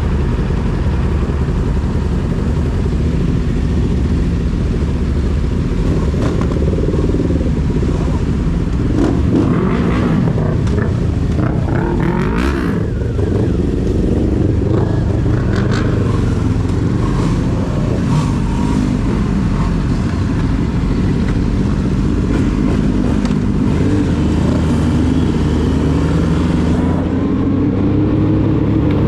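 Yamaha YZF-R6 inline-four sportbike engine with a full-system aftermarket exhaust under way, its pitch rising and falling as the rider accelerates and eases off, climbing again near the end.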